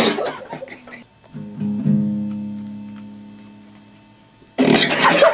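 An acoustic guitar chord is strummed about a second and a half in and left to ring, fading away over about two and a half seconds. Short loud noisy bursts come at the start and again near the end.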